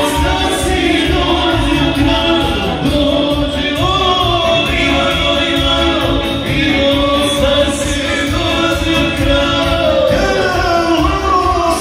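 Live folk band playing kolo dance music with a man singing into a microphone over a steady beat.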